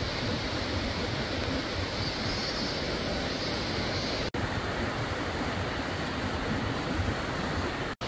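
Steady rush of flowing stream water, cutting out for an instant about four seconds in.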